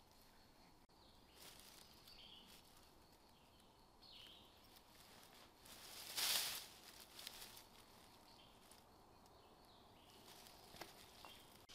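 Faint rustling as a backpack is opened and rummaged through among dry fallen leaves, with one louder, brief rustle about six seconds in.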